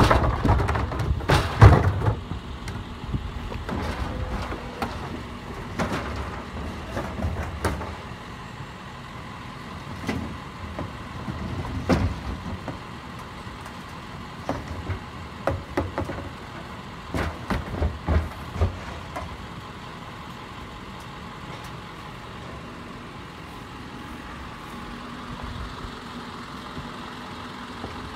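Garbage truck running, with a string of clanks and knocks through the first twenty seconds or so, loudest at the start, then a steady engine hum.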